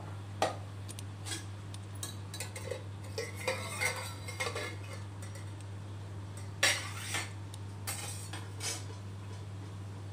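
Steel plate cover and steel dish clinking and scraping against the rim of an aluminium pressure cooker as the cover is lifted off. There is a sharp clink near the start, then a run of lighter clinks and scrapes, with the loudest clank about two-thirds through.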